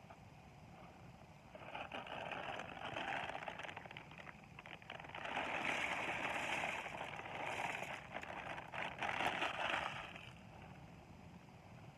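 A crinkly plastic package of dried egg noodles rustling as the noodles are shaken out and patter into a cast iron pot of boiling broth. It is loudest in the second half and stops shortly before the end.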